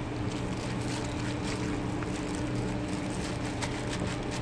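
Steady low machine hum with a held droning tone, with faint wet squelches and plastic crinkles from a gloved hand mixing marinated beef in a metal pot.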